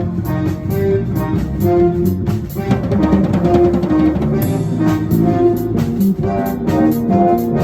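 Free-form jazz-rock band playing: a melodic lead line over low bass notes and a drum kit with steady, rapid cymbal strokes.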